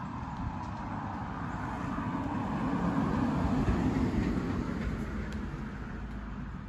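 A vehicle passing by, a steady rumble that swells to its loudest about three to four seconds in and then fades away.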